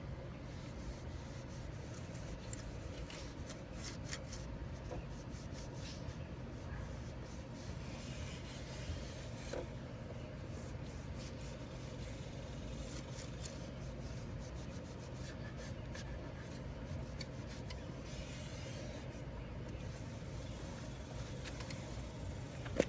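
Scrubbing wet toothpaste off a yellowed plastic headlight lens: steady rubbing strokes, with a low hum underneath.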